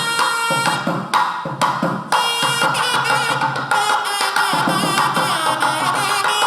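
Music with drums and percussion beating a steady rhythm under a held melody line that wavers in pitch.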